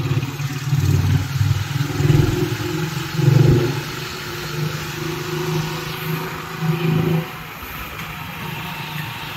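Motor vehicle engine running amid traffic noise, its note swelling several times in the first few seconds, then settling to a steadier, quieter hum.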